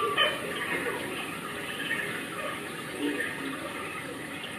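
Steady rushing background noise like running water, with faint scattered voices.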